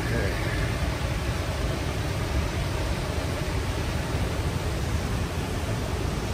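Siffleur Falls roaring steadily, an even rushing noise with no breaks.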